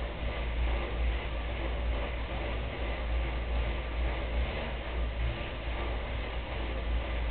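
Indoor bike trainer's roller spinning against the rear tyre as the bike is pedalled: a steady whir over a deep hum.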